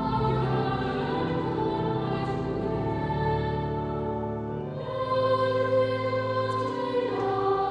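Cathedral choir singing at evensong in sustained, held chords, with low and high voices together; the harmony changes about five seconds in.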